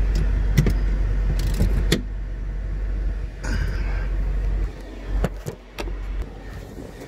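Several sharp clicks and knocks of a hand tool on a screw and plastic trim as a T40 screw is torqued down, over a steady low rumble that eases after about two seconds.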